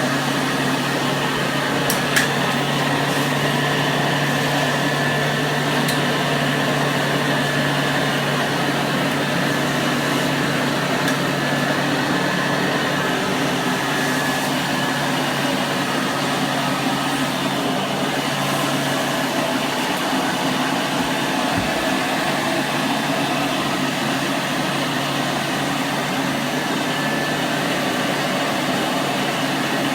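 Hoover Model 700 upright vacuum cleaner running steadily, its motor hum and suction noise constant, in use with its attachment tools.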